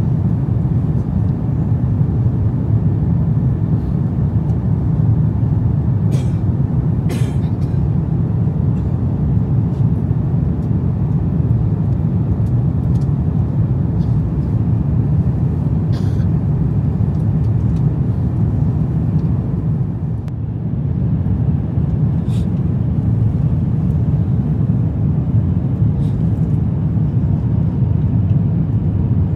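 Steady in-flight cabin noise of an Airbus A350-900 airliner heard from a seat beside the wing: a low, even rumble of airflow and its Rolls-Royce Trent XWB engines. It eases slightly for a moment about twenty seconds in, with a few faint clicks on top.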